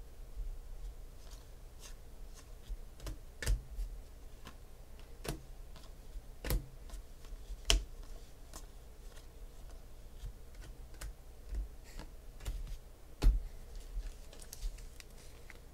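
Football trading cards handled and sorted by hand: scattered light clicks and taps of card edges, the sharpest about 13 seconds in, over a steady low hum.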